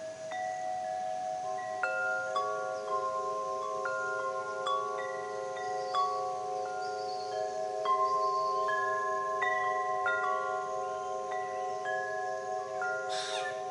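Wind chimes ringing, single clear notes struck at irregular intervals and each ringing out, over a steady, slightly pulsing drone of several held low tones. A brief hiss comes near the end.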